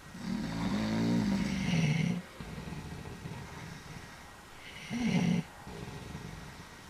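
Old men snoring while asleep: a long, loud snore in the first two seconds and a shorter one about five seconds in, with quieter snoring between.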